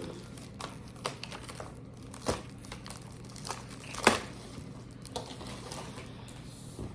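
Plastic packaging crinkling as it is handled, with scattered light clicks and taps; the sharpest click comes about four seconds in.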